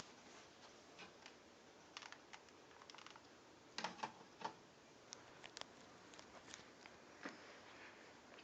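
Near silence: a 52-inch Hunter Studio Series ceiling fan running on high, almost silent, with faint, irregular light clicks that fit the rattle of its light-kit glass globe.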